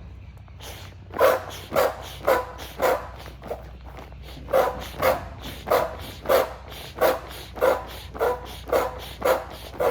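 Built-in foot pump of an inflatable sleeping pad stepped on over and over, each press forcing out a short, pitched puff of air, about two a second. The pumping stops briefly after the first four strokes, then runs on steadily.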